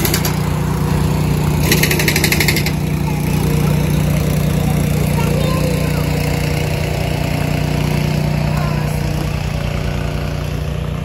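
Car driving on the road: a steady engine and road drone, with a brief rapid rattle about two seconds in.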